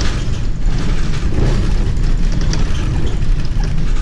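City bus driving, heard from inside at the front: a heavy low rumble of engine and road with short rattles and clicks.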